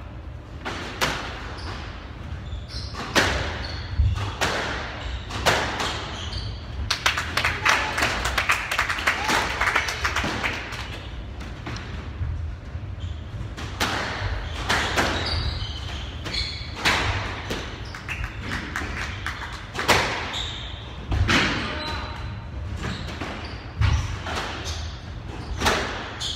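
Squash rally: a squash ball is struck by rackets and slaps off the court walls, making sharp thuds every second or two.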